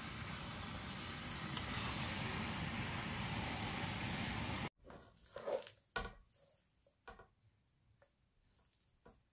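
Minced meat and onions sizzling steadily in a hot frying pan while a wooden spoon stirs them; the hiss cuts off suddenly about halfway through. Then come quieter, scattered scrapes and knocks of a wooden spoon stirring the cooked meat filling in the pan.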